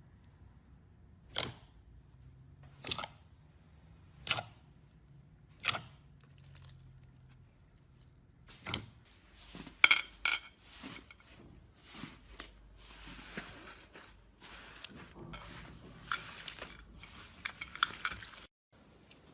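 Slime being handled: four sharp clicking snaps, one about every second and a half, then a long run of crackling and crinkling that stops abruptly near the end.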